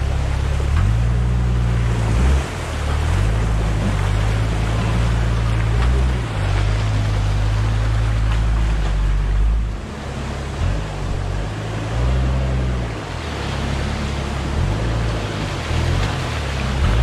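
Toyota Land Cruiser HZJ73 pushing through a shallow creek, its tyres churning up water that splashes and rushes steadily along the side of the truck. Underneath is the low rumble of its 1HZ inline-six diesel, which rises and falls every second or two.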